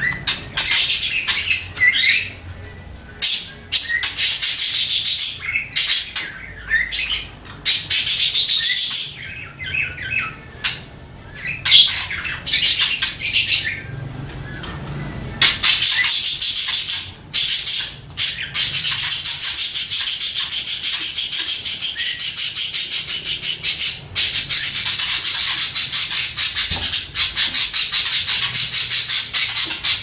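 Budgerigar warbling: short bursts of high, scratchy chatter in the first half, then from about halfway a long unbroken roll of rapid chattering.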